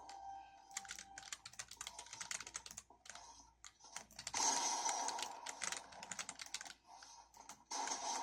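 Typing on a Geodamer 65% mechanical keyboard: rapid key clacks in uneven bursts, with a brief lull about three and a half seconds in.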